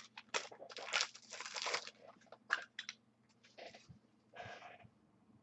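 Trading cards being handled: irregular rustling, sliding and light clicks in short bursts.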